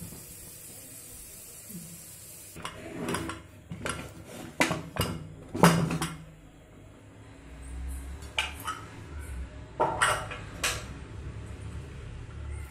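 Aluminium pressure cooker and its lid clanking as they are handled and the cooker is opened: about ten sharp metal knocks and clinks in scattered clusters, the loudest a little past the middle.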